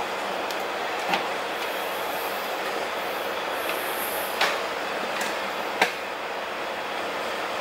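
Steady background hiss with a few short clicks. The first click, about a second in, comes as RCA plugs are pushed into the equalizer's output jacks; the sharpest is near six seconds.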